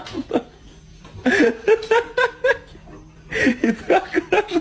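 A person laughing in quick repeated bursts, in two runs: the first starts about a second in, the second about three seconds in.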